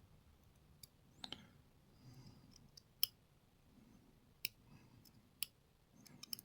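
Faint, irregular small clicks of tweezers and tiny metal lock parts being handled, about six in all, as the spring-loaded sliders of a dismantled dimple lock are worked out.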